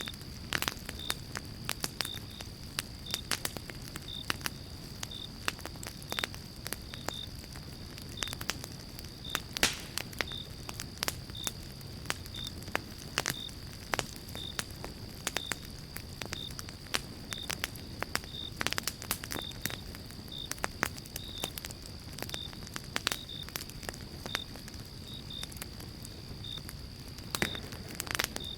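Wood fire in a fireplace crackling, with frequent sharp pops of uneven loudness over a low steady rush. A faint high tick repeats about once a second behind it.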